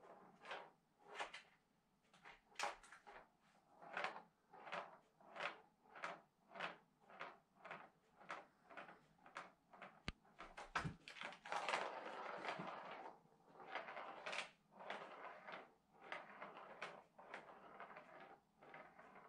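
A ball rolling around the plastic circuit of a Catit Senses Super Roller Circuit cat toy, clicking over the track's joints in a regular rattle about one and a half times a second. Near the middle come two low knocks and a denser stretch of rattling.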